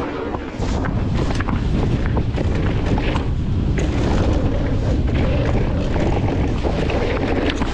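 Wind buffeting the microphone of a camera on a mountain bike ridden down a dirt trail, a steady low rumble, with tyre noise on dirt and frequent clicks and rattles from the bike over bumps.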